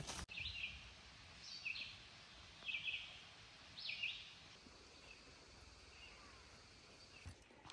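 A songbird singing in woodland: short, high phrases repeated about once a second, four clear ones and then a few fainter ones, over a faint steady background hiss.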